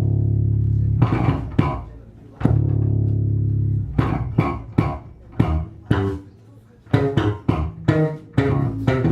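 Instrumental music led by bass guitar: two long held low notes, then a quick run of short, sharply attacked notes from about four seconds in.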